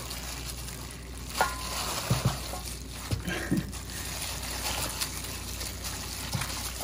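Wet squishing of raw pork ribs and marinade being mixed by gloved hands in a stainless steel bowl.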